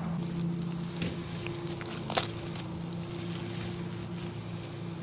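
Dry leaves and grass crackling and rustling as dachshund puppies chew leaves and scamper on the lawn, with a sharp snap about two seconds in. A steady low hum runs underneath.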